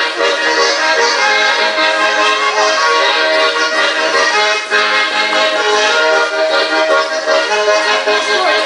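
Traditional-style instrumental music playing without a break: a melody over held chords.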